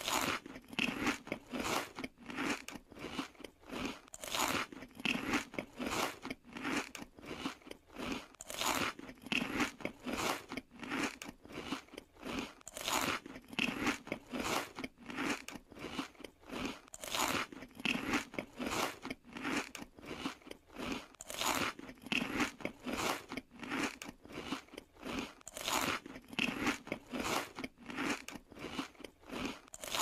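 Chuck E. Cheese's Ticket Muncher ticket-redemption machine munching: a fast run of crunching, chewing strokes in a pattern that repeats about every four seconds.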